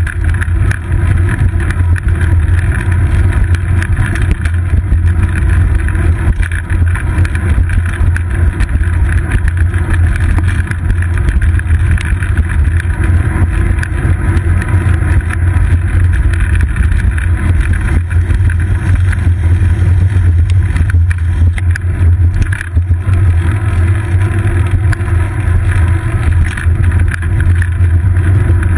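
Steady, loud rumble of road vibration and wind buffeting picked up through a seat-post-mounted GoPro Hero 2's housing on a bicycle rolling along city streets.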